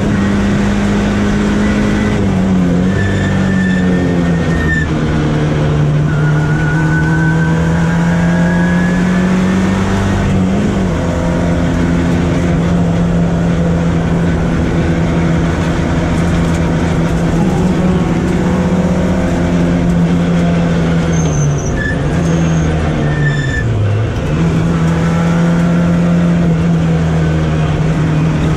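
Volkswagen Golf Mk1 race car engine, heard from inside the car, running hard at high, steady revs. The revs drop briefly a few times, the deepest near the end, before climbing back, as at gear changes or lifting off for corners.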